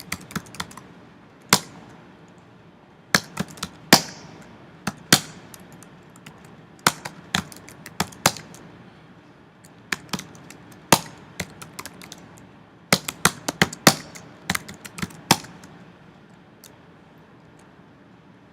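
Computer keyboard keys pressed in irregular clusters of sharp clicks, a few struck hard, with pauses between the clusters; the key presses stop about three seconds before the end.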